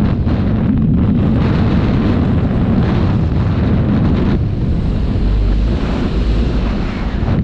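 Airflow buffeting a camera microphone held out on a stick by a paraglider pilot in flight: a loud, steady rush of wind noise, heaviest in the low range.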